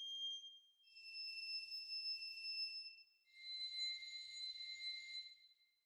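Bowed crotales rendered by NotePerformer sample playback: sustained, high, ringing notes about two seconds each. One note dies away at the start, then a second note sounds, followed by a lower one.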